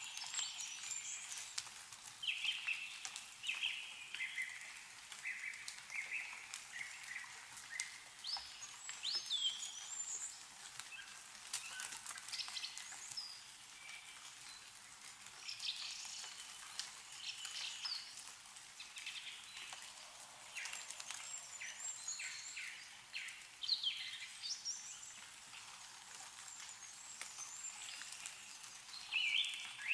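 Several small songbirds chirping and trilling again and again, with scattered drips of meltwater falling from snow-laden trees.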